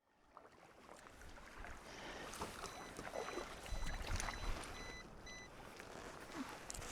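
Sea water lapping and splashing against a kayak's hull, with low wind rumble on the microphone. It fades in at the start. Around the middle there is a run of about six short, evenly spaced electronic beeps.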